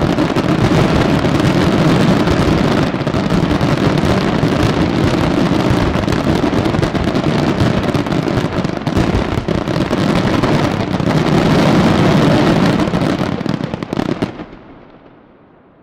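Dense barrage of aerial firework shells bursting in quick succession, the bangs running together into a continuous rumble with crackle. About fourteen seconds in it dies away quickly, leaving only a fading echo.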